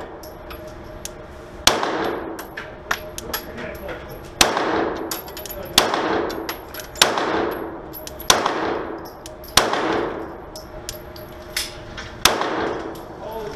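9mm Glock 17 pistol fired slowly, about eight shots one to two and a half seconds apart, each boom ringing out in the echo of an indoor range. Lighter clicks and metallic tinkles fall between the shots.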